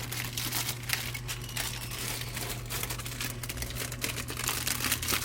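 Plastic snack wrappers crinkling and rustling as packaged snacks are handled and sorted, with a steady low hum underneath.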